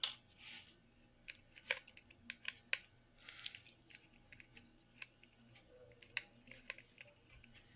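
Scattered light clicks and taps, with a little rubbing, as hands handle a 3.5-inch hard drive and a small Torx screwdriver while taking off the drive's circuit board.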